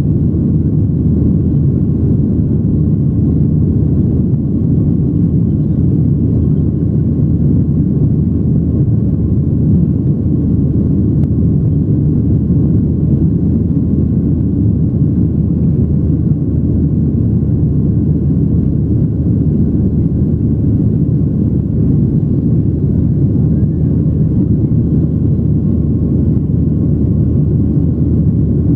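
Steady low rumble of a Boeing 737's jet engines and rushing air, heard inside the passenger cabin during the climb after takeoff.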